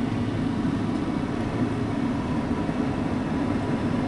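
Steady road noise inside a moving car's cabin: a low, even drone of tyres, engine and wind at cruising speed.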